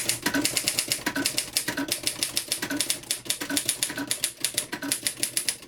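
1965 Royal Empress manual standard typewriter being typed on at speed: a fast, continuous run of type-bar keystrokes that stops suddenly near the end.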